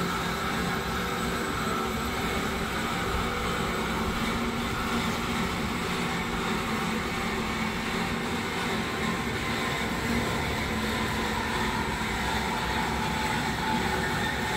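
Steady machine running noise, an even mechanical whir with a faint tone that drifts slightly lower over the stretch.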